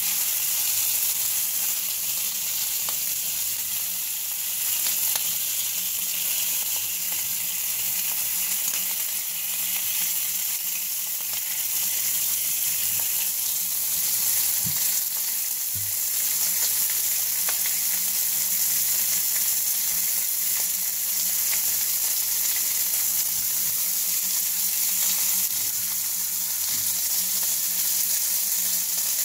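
Bacon grease sizzling steadily with small crackles in the hot frying pan left on the stove burner, over a low steady hum. A couple of soft knocks come about halfway through.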